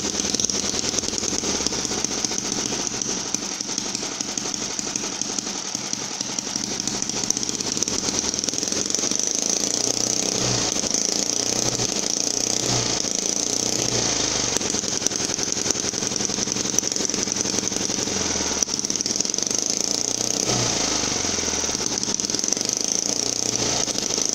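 Miniature 12 cc four-cylinder OHV gasoline engine, a Holt 75 replica, running steadily while firing on only one of its four cylinders.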